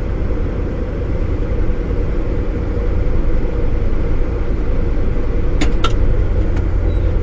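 A vehicle engine running steadily with a low rumble and a faint steady hum. A few short clicks come about five and a half to six seconds in.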